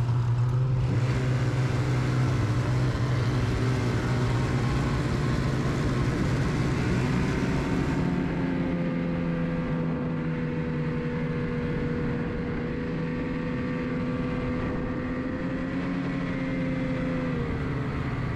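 Snowmobile engine running steadily while riding, its pitch dipping slightly near the end.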